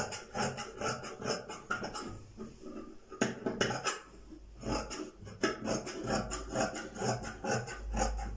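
Large tailor's shears snipping through fabric, the blades closing in quick runs of sharp metallic clicks broken by short pauses about two and four seconds in.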